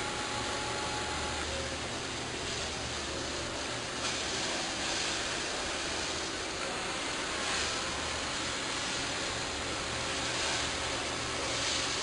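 Steady low machinery hum under an even hiss, with no distinct clicks or knocks.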